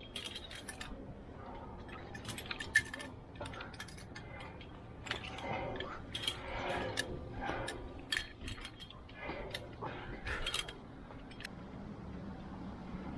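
Metal climbing gear clinking and clicking in irregular sharp knocks, over a faint steady rumble.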